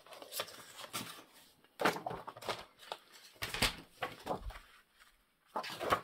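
Paper being handled and shifted on a work table: a handful of separate, irregular rustles and soft scrapes.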